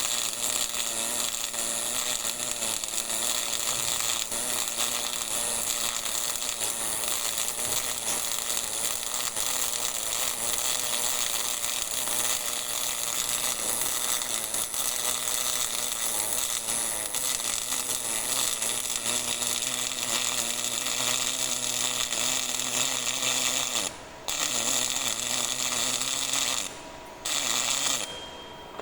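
GMAW (MIG) welding arc running with a steady crackling, sizzling buzz. It stops briefly about four-fifths of the way through, then stops and restarts once more before cutting off near the end.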